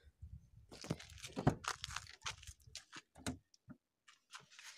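Handling noise as a car door is opened and someone gets into the driver's seat: crackling rustles, clicks and several knocks with a low rumble, the loudest knock about a second and a half in.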